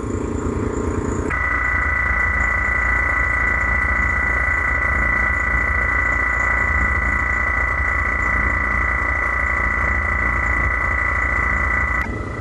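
Vacuum pump running steadily as it pulls down a vacuum chamber to degas epoxy: a low hum with a high steady whine that sets in abruptly about a second in and drops away near the end.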